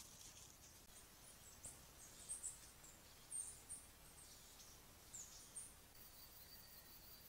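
Faint forest ambience with scattered short, high chirps of small birds; from about six seconds a steady, high insect trill sets in.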